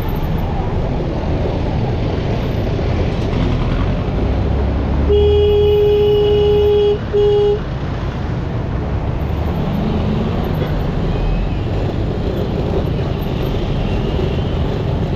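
Tricycle's motorcycle engine running in city street traffic. About five seconds in, a horn gives one long honk of about two seconds, then a short second honk.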